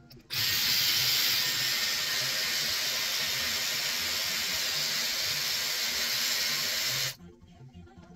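Dyson Airwrap Multistyler blowing air through a curling barrel: a steady, loud rush of air that switches on sharply just after the start and cuts off abruptly about seven seconds in.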